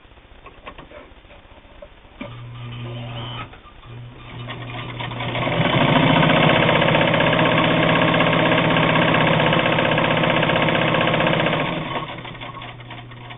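Bel Air Precision De Luxe all-steel sewing machine sewing through eight layers of heavy denim. It makes a few slow stitches with light ticks and a low motor hum, then speeds up to full speed, runs steadily for about six seconds, and slows to a stop.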